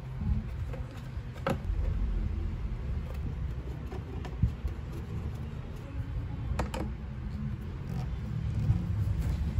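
Scattered clicks and taps of hands working on a car dashboard's plastic panels, wiring harness and screws, over a steady low rumble.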